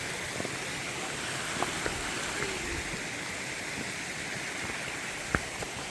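A creek rushing steadily, with a few light clicks and one sharper click near the end.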